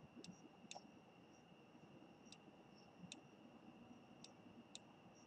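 Faint computer mouse clicks, about six spread unevenly over a few seconds, over near-silent room tone with a faint steady high whine.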